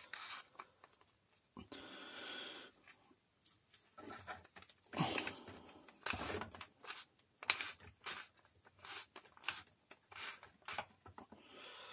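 Plastic clicks, knocks and rubbing as a cordless drill's gearbox and motor assembly is handled and pressed into its plastic housing half, in scattered short bursts.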